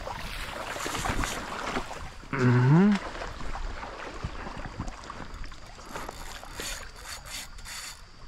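Steady rush of river current, with a man's short vocal exclamation rising in pitch about two and a half seconds in.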